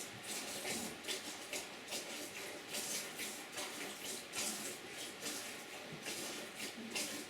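A goat being hand-milked: squirts of milk hitting a milk pail in an even rhythm, about two a second.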